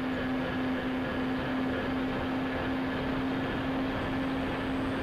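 Radio-controlled Dynam Skybus (DC-3) model aircraft in flight, heard from its onboard camera: the twin electric motors and propellers drone on one steady low tone over a constant rush of air.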